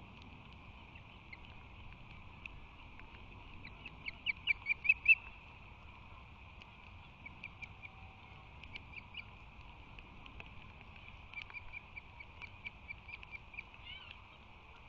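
Osprey calling in quick series of short, high chirps. One series about four seconds in grows loud, and more runs of chirps follow later, over a steady hiss.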